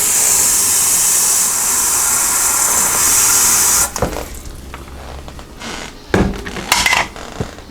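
Water running from a tap into a coffee-maker carafe, filling it for a 12-cup pot, cut off abruptly about four seconds in. A few short knocks and clunks of handling follow.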